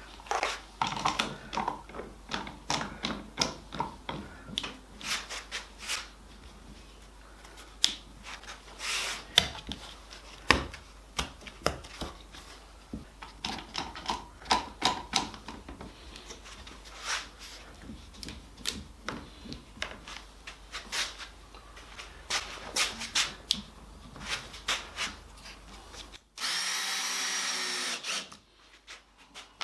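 Workshop hand work: a string of sharp clicks and knocks, several a second and uneven, as timber pieces and tools are handled on the bench. Near the end a cordless drill runs steadily for about two seconds.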